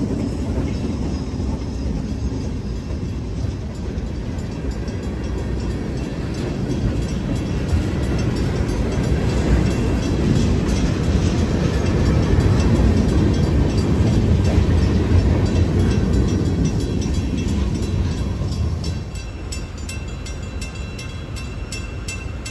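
A diesel freight train rolling past a railroad crossing: the New York & Atlantic MP15AC switcher goes by first, then a long string of boxcars and flatcars, their steel wheels rumbling and clacking on the rails. It grows loudest midway and eases off near the end, when a quick regular ticking comes in.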